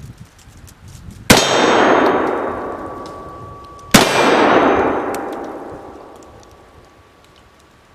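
Two shots from a .44 Remington Bulldog cap-and-ball revolver, about two and a half seconds apart, each hitting a steel target that rings loudly and fades over a few seconds.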